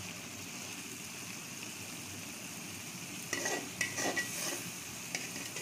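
Ivy gourd slices sizzling and bubbling gently in their masala in an aluminium pan. From about three seconds in, a spoon scrapes and stirs across the pan bottom in several quick strokes.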